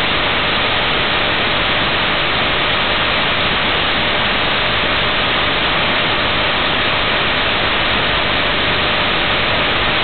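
Loud, steady static hiss of an untuned analog television, with a faint steady tone underneath.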